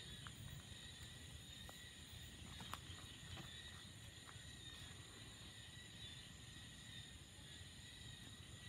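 Faint, steady chorus of night insects, several high pitches held unbroken, with a few faint clicks scattered through the first half.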